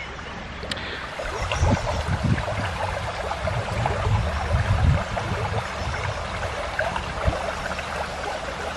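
Shallow brook trickling over stones, running low on water, with some low thumps from about a second in.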